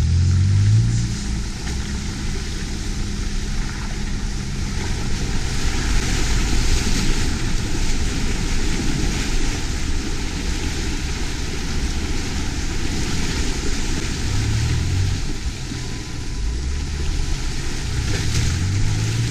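A 4x4's engine running at low speed as it drives through muddy, water-filled trail ruts, with a steady rush of tyres churning and splashing through mud and water. The engine drone stands out more in the last few seconds.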